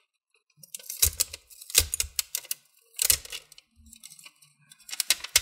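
Thin black plastic protective sheet crackling and crinkling as it is peeled off a laptop's metal keyboard plate, in several short bursts of sharp clicks.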